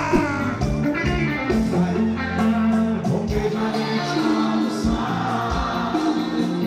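Live band music with singing, with held sung notes over a steady beat.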